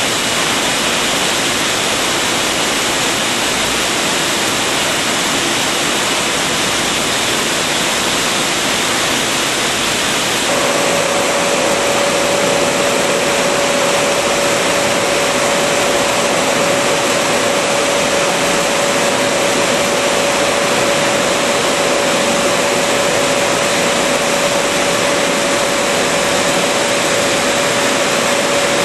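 Steady machine noise of a rotary bottle-filling line running, an even hiss-like din. About ten seconds in the sound shifts and a steady mid-pitched hum joins it.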